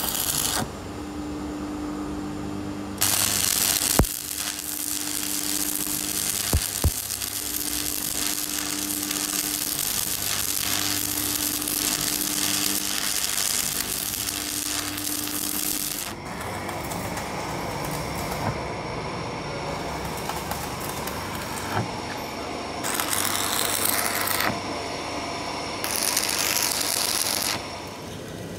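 Heavy workshop machinery noise: a steady mechanical hum that comes and goes with a broad hiss over it, and a few sharp metal knocks. The sound changes abruptly several times.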